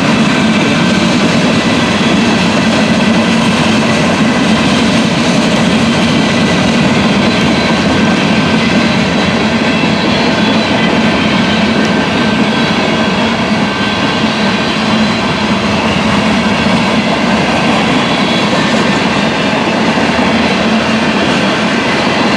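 Freight cars of a CN freight train rolling past close by: a loud, steady rumble and rattle of steel wheels on the rails.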